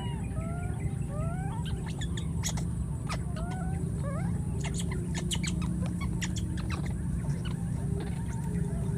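Baby monkeys calling with short, rising, high-pitched coos, and a quick run of sharp squeaks or chirps in the middle of the clip, over a steady low rumble.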